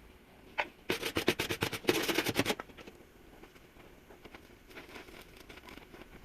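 Body-shop metalwork on a car's rear body: a rapid run of sharp crackling clicks, about ten a second, lasting about a second and a half, with a few fainter clicks before and after it.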